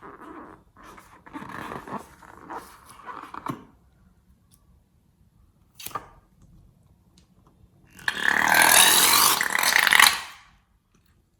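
Slime being squeezed and worked by hand: soft irregular squelching and crackling, then about two seconds of loud squelching with air being pressed out of the slime near the end.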